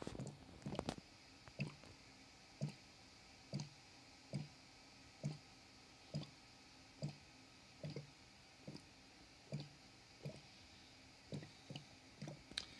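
S-shaped airlock on a fermenting bucket bubbling, carbon dioxide glugging through its water in short, even blips a little more than once a second. The steady rate is the sign of a vigorous fermentation: a double IPA working hard with kveik yeast at room temperature.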